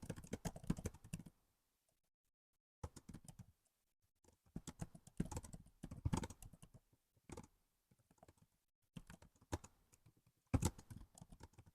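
Typing on a laptop keyboard: quick runs of key clicks in short bursts, broken by pauses of a second or so.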